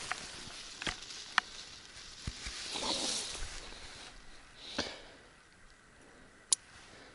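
Rustling in tall grass and handling noise as a caught pike is picked up by hand, with a few sharp clicks.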